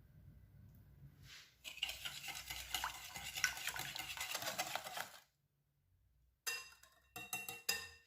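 A utensil stirring briskly in a mixing bowl, with a rapid run of clicks and scraping against the bowl lasting about three and a half seconds. After a short pause come a few shorter clinking strokes that ring briefly.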